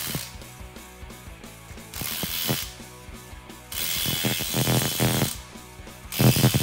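DeWalt cordless impact wrench hammering in short bursts as it tightens bolts on a rear axle's suspension bracket. There are three bursts, the longest about a second and a half.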